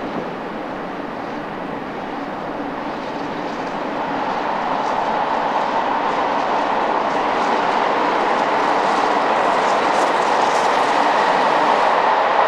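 Steam locomotive 70000 Britannia, a BR Standard Class 7 Pacific, approaching with its train. The running and rolling noise grows steadily louder from about four seconds in.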